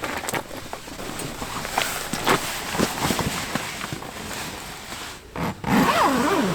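Rustling and irregular light knocks and steps as someone climbs into a tent, with fabric and gear being handled. Near the end comes a short groaning voice.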